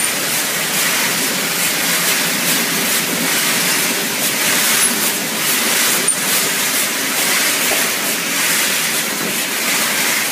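Steady hissing machinery noise from a running pet-food production line, with the stainless rotary drum tumbling dry kibble; a couple of faint clicks about six seconds apart.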